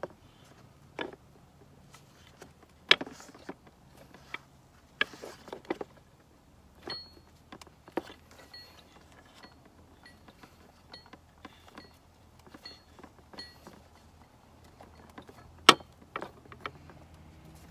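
Scattered light clicks and knocks of a new crankshaft oil seal being pressed by hand into an aluminium timing cover, the loudest a sharp knock near the end.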